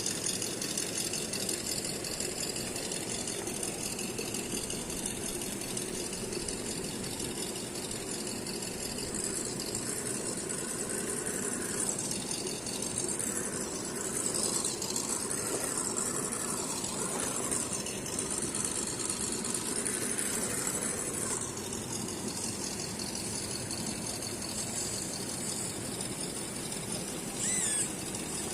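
Electric drive motor and gearbox of a 1:10 RGT EX86010-CJ Jeep Rubicon RC crawler whining as it drives, the pitch shifting with the throttle through the middle stretch. A brief, louder gliding chirp comes near the end.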